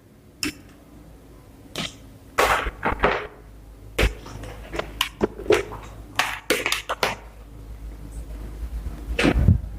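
Irregular clicks, knocks and brief rustles of cables and computer parts being handled while a power supply's cable is plugged into the build.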